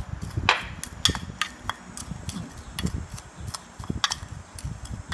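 Metal spoon clinking and scraping against a ceramic bowl while tossing a dry, crumbly mix of dried fish floss, sugar and fried shallots. The taps come irregularly, several a second.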